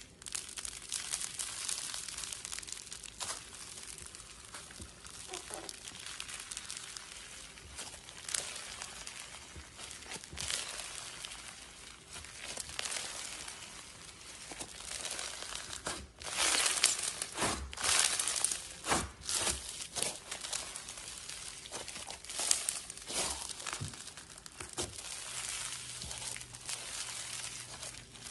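Crunchy slime being worked by hand, giving a dense, steady crackling of many fine clicks. Louder crackling bursts come a little past the middle and again a few seconds later.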